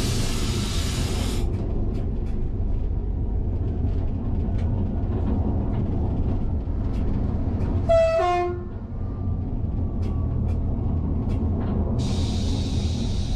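Cab of an SNCF AGC multiple unit under way: a steady running rumble with scattered wheel clicks on the rails. About eight seconds in, as another train passes on the adjacent track, a short two-tone train horn blast sounds, and a steady hiss rises at the start and again near the end.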